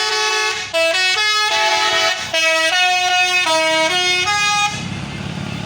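Basuri telolet air horn on a bus playing a quick stepped melody, several bright horn notes sounding together and changing about every half second, with two short breaks. It stops about three quarters of the way through, leaving a low engine rumble.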